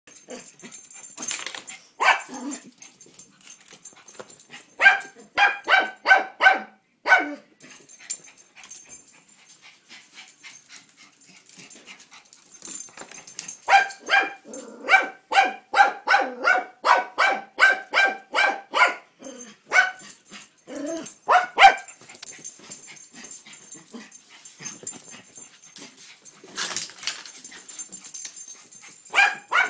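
Small long-haired dog barking in runs of sharp, high-pitched barks, about three a second, with quiet gaps between runs; the longest run lasts about six seconds. Alert barking at the mail carrier.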